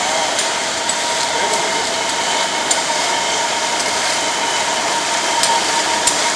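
Canning-line conveyors and machinery running: a loud, even factory din with a steady high hum, and a few scattered light clicks as metal cans knock along the belts.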